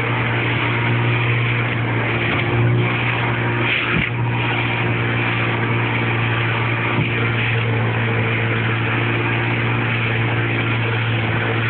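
Motorboat engine running steadily at speed, a constant low drone, with a rush of water and wind over it.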